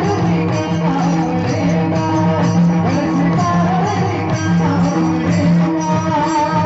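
Marathi devotional kirtan music: singing over sustained accompanying notes, with a barrel drum played in the ensemble.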